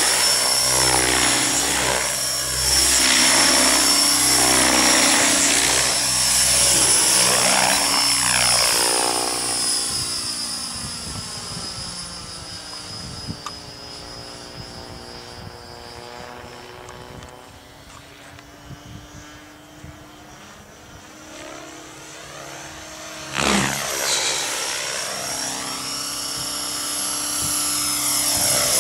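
Align T-Rex 550E electric RC helicopter in aerobatic flight: a high motor and rotor whine with blade noise rising and falling in pitch as the rotors load and unload. It fades as the helicopter climbs far away, then comes back loud suddenly near the end.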